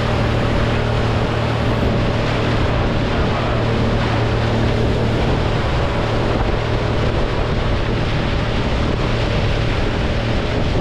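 Motorboat engine running at a steady low hum while under way, with water and wind noise over it.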